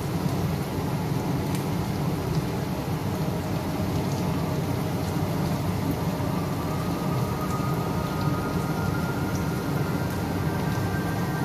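Steady low-pitched noise, even throughout, with faint sustained tones coming in about six seconds in.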